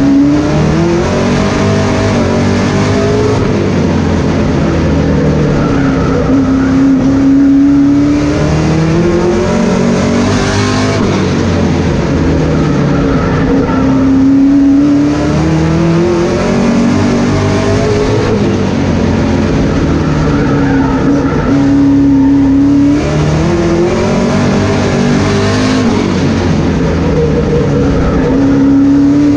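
Sportsman stock car's engine heard from inside the cockpit at racing speed. Its pitch climbs on each straightaway and falls back as the driver lifts for the turns, repeating lap after lap about every seven seconds.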